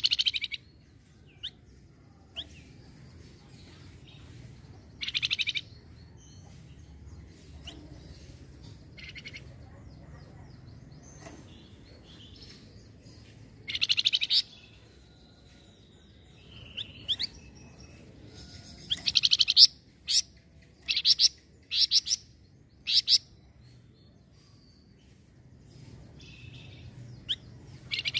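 A flamboyan songbird calling in bursts of fast, high chattering, each about a second long and repeated several times. A run of short sharp calls comes about two-thirds of the way through, with single chirps scattered between the bursts.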